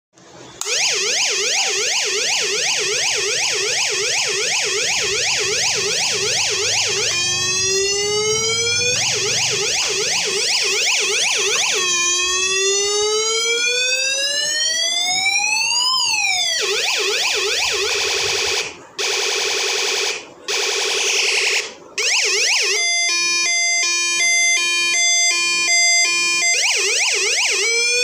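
UM3561 siren-generator IC driving a small 8-ohm speaker, switched through its electronic siren tones by push buttons. It gives fast repeating upward sweeps, then slow rising glides that peak and drop sharply, a few brief cut-outs, a stepped alternating two-pitch pattern, and fast sweeps again.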